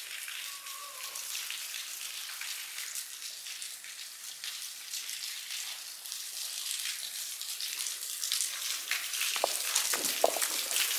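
Thin waterfall trickling down a sandstone rock face, its water dripping and pattering onto the rocks below as a steady hiss full of small drop splashes. A few louder clicks come near the end.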